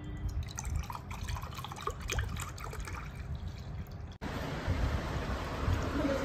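Lassi poured from a plastic jug into steel tumblers, a splashing trickle as the cups fill. About four seconds in it cuts off suddenly and a steady hiss takes over.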